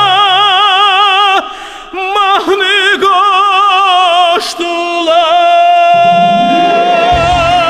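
A man singing long, wordless sustained notes in an operatic style with a wide, even vibrato, over the song's accompaniment. The sound drops back briefly about a second and a half in, and a long held note begins near the end as the bass comes back in.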